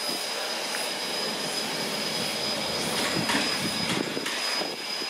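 Steam locomotive QR 1089, a BB18¼ class engine, moving slowly into the platform with its carriages. A steady hiss runs under a constant high tone, and a few short sharp bursts of noise come about three to four and a half seconds in.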